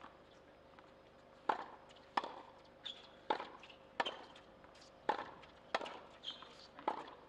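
Tennis ball striking a hard court and rackets: a series of sharp knocks, loosely in pairs, about one every second, the first about one and a half seconds in and the loudest.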